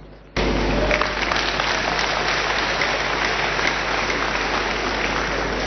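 Congregation applauding, starting abruptly about half a second in and holding steady.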